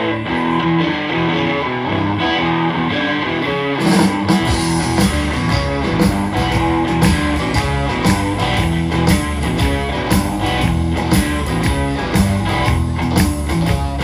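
Live blues band starting a song: electric guitar intro, then drums and bass come in about four seconds in and keep a steady beat.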